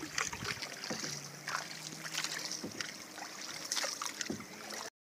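A small boat being paddled at sea: soft, irregular water splashes over a faint hiss of wind and water. It cuts off suddenly near the end.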